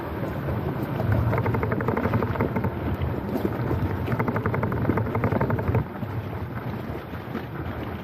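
Running water with wind buffeting the microphone, and a stretch of rapid fine crackling twice in the middle.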